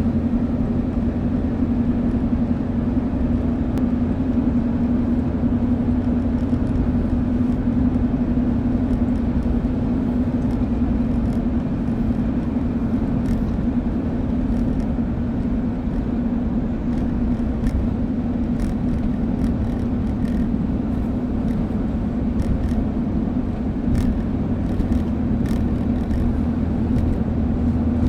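Steady hum holding one pitch over road rumble from a moving 2001 Ford Escape. The noise comes only with the vehicle in motion, and the owner wonders whether it is a wheel bearing or a tire.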